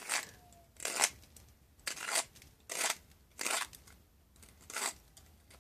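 Metal pipe reamer's blades scraping the carbon cake out of a briar pipe bowl: six short scraping turns, about a second apart.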